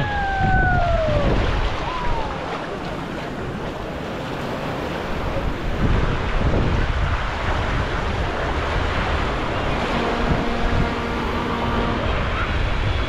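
Low surf washing onto a beach, with wind rumbling on the microphone. A voice trails off, falling in pitch, at the start, and a steady humming tone sounds for about two seconds near the end.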